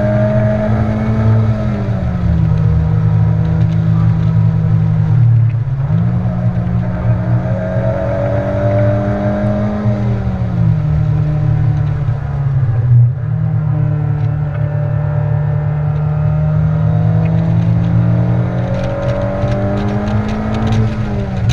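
Honda Civic Type R's turbocharged four-cylinder engine heard from inside the cabin, driven hard on track: the engine note climbs slowly under power, drops at about 2, 10 and 21 seconds as the driver shifts or lifts, and jumps back up sharply near 6 and 13 seconds on downshifts.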